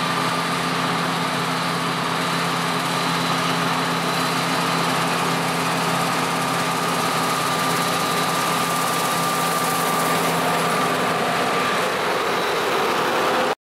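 John Deere combine harvester running steadily, a constant engine hum with a thin high whine over it; the sound cuts off suddenly near the end.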